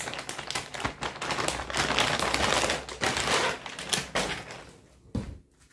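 Holographic plastic mailer bag being torn open and crinkled by hand: a dense, rapid crackle of tearing, rustling plastic that dies down about four and a half seconds in, followed by one short knock.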